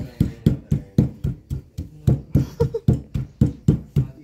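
Wooden pestle pounding in a stone mortar, a steady run of dull thuds at about four strokes a second: peanuts being crushed for peanut sambal.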